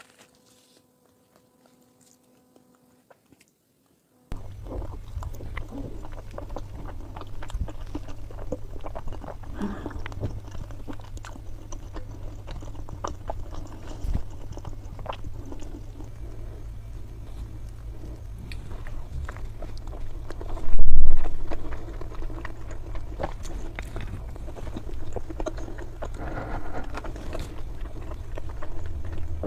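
Close-miked eating: chewing and biting with many small wet clicks, over a steady low hum, starting about four seconds in after near silence. One loud thump stands out about two-thirds of the way through.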